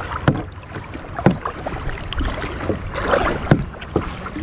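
Single kayak being paddled quickly: irregular paddle splashes and sharp knocks in the water, over a low rumble of wind on the microphone.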